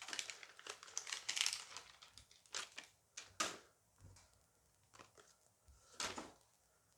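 A Dice Masters booster pack's wrapper crinkling and tearing open, followed by a few separate short rustles and clicks as the contents are handled.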